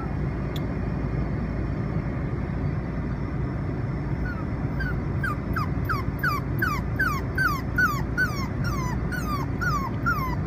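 Steady low car road rumble inside the cabin. About four seconds in, a Chinese Crested Powderpuff puppy starts whimpering, a run of short whines that each fall in pitch, about three a second. This is the distress whining of a puppy unhappy riding in a car.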